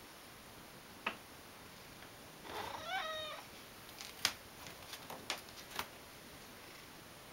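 Ragdoll cat meowing once, a call of about a second, asking its owner for a treat topping on its food. A single sharp click comes before it, and a handful of sharp clicks follow.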